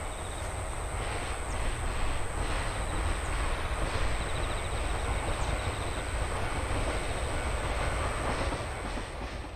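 The Royal Express train running over a level crossing: a steady loud rumble of wheels on rails with some clatter, and the crossing's warning bell ringing rapidly behind it at times.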